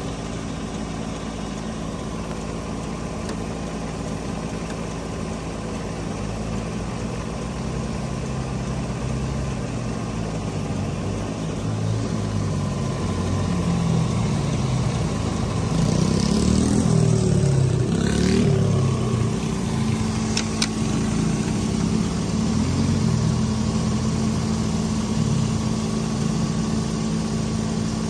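Pickup truck engine idling steadily, growing louder towards the middle, with a brief hiss and a couple of sharp clicks a little after the middle.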